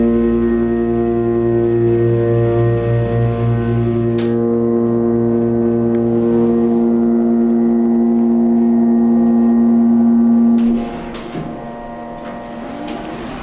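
The hydraulic pump motor of a 1970 Burlington Dover elevator runs with a loud, steady hum of several tones while the car rises. A click about four seconds in ends a low rumble beneath it. The hum cuts off about eleven seconds in as the car levels and stops, and the doors then begin to slide open.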